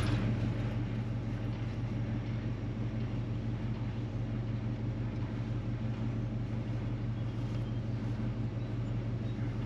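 Engine running steadily at idle, an even low hum with no change in speed.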